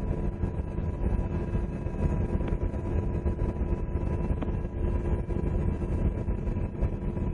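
UH-60 Black Hawk helicopter's rotor and engine noise, heard from inside the cabin: a deep steady drone with two faint constant hums over it.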